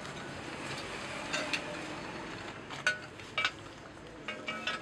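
Hydraulic jack parts and tools knocking together: about six short, ringing metal clinks at uneven gaps.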